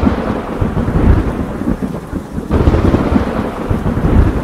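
Thunderstorm: steady rain under loud rolling thunder, with a new roll of thunder building about two and a half seconds in.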